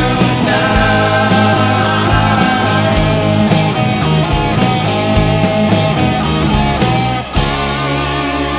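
Rock music: an instrumental passage with distorted guitars, bass and drums keeping a steady beat, with a short break about seven seconds in.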